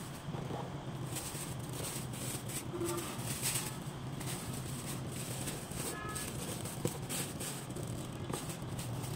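Thin plastic liner bag rustling and crinkling in short bursts as it is handled and fitted into the plastic waste drawer of a self-cleaning litter box, with small knocks of the drawer, over a steady low hum.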